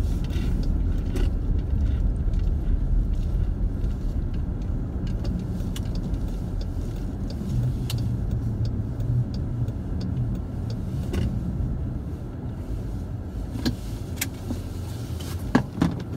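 Car engine and tyres rumbling low and steady, heard from inside the cabin as the car moves slowly over a snowy lot, with a few small clicks and knocks, a couple of them near the end.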